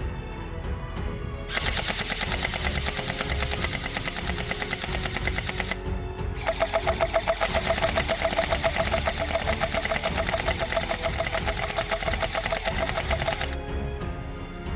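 Electric gel blaster firing on full auto: a rapid, even rattle of shots over the whine of its motor. It starts about a second and a half in, breaks off briefly around six seconds, then runs on until shortly before the end.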